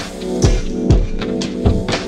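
Music with a steady drum beat: regular low kick-drum hits under held instrument notes.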